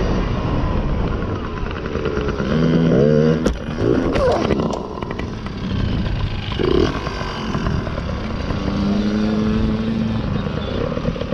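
A small youth motocross bike's engine revving, then a crash about three and a half seconds in: a few sharp knocks and clatter as the bike goes down on the dirt track. Afterwards engine sound continues more faintly under heavy wind rumble on the bike-mounted microphone.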